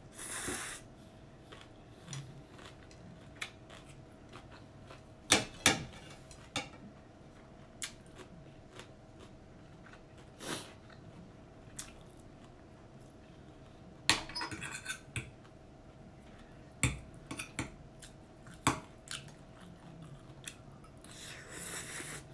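A metal fork clinking and scraping against a ceramic plate of stir-fried noodles, in scattered sharp clicks, with noodles slurped and chewed at the start and near the end.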